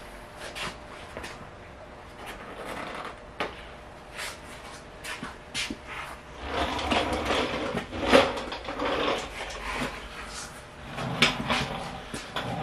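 Irregular clicks, knocks and rustling from hands prying at and handling a Porsche 924's interior trim pieces around the door opening, busiest in the middle of the stretch and again near the end.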